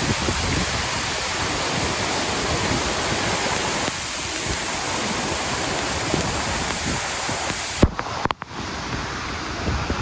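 Steady, dense rush of a tall waterfall and the rocky stream rapids below it. A sharp click and a brief dip in level come about eight seconds in, after which the water sound goes on.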